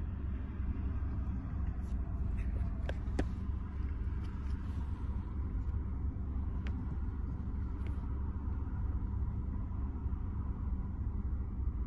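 A steady low rumble runs under the handling of a new iPhone 12 and its paper-like protective wrap. A few light clicks and rustles come about two to three seconds in, and two more near seven and eight seconds.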